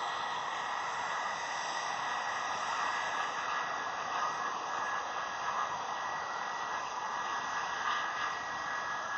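Jet airliner engines running: a steady rush of noise with a thin, high, steady whine over it.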